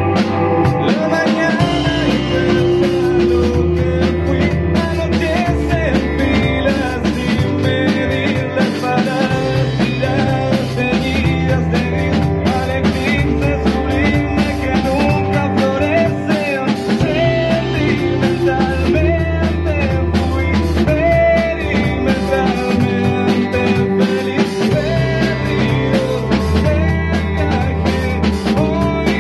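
Rock band playing a song at full volume, with electric guitar, bass and drum kit under a man singing.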